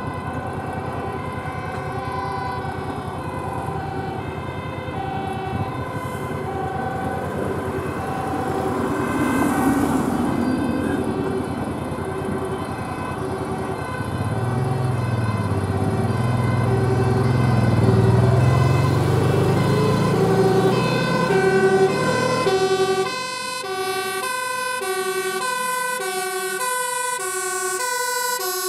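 Fire engine two-tone siren alternating steadily between a high and a low note, about one full cycle a second. About halfway through, the low rumble of a heavy engine grows and rises as a truck draws near.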